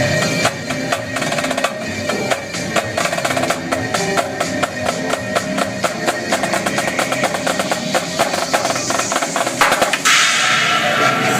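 Live drum-corps-style drumming with sticks over DJ dance music: dense, rapid strokes that speed up into fast rolls. About ten seconds in, a sudden loud, hissy wash comes in.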